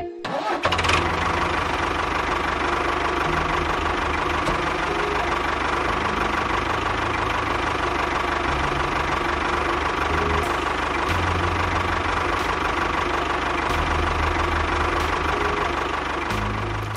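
A small motor running steadily, a loud mechanical whir with a high hum, starting abruptly about half a second in and fading near the end.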